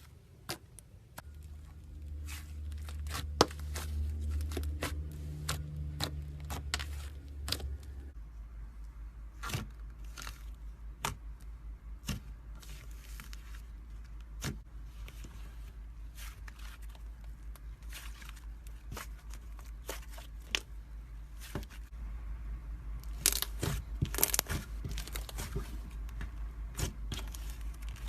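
Slime being kneaded and stretched by hand, giving an irregular string of sharp clicks and wet pops, thickest near the start and again near the end, over a steady low hum.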